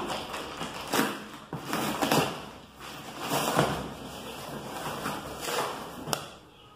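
A cardboard box of books being opened and unpacked by hand: a run of irregular rustles and scrapes of cardboard and packing, with a short sharp click near the end.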